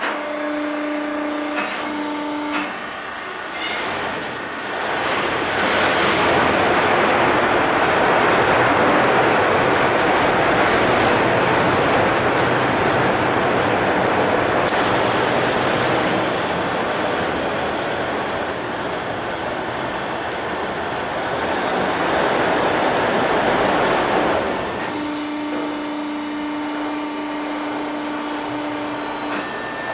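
Ferry's engine running with a steady hum. From about five seconds in, a loud rushing noise covers the hum for some twenty seconds, then fades and leaves the hum again.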